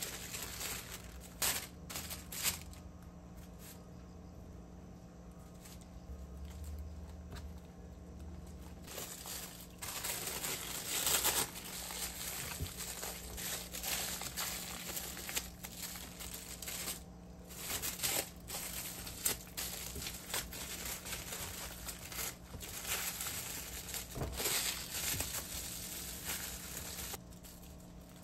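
Thin plastic bag crinkling and rustling as it is wrapped and squeezed tightly around a tortilla wrap. There are a couple of sharp crinkles in the first few seconds, then about nine seconds in the handling turns into dense, continuous rustling. A faint steady hum runs underneath.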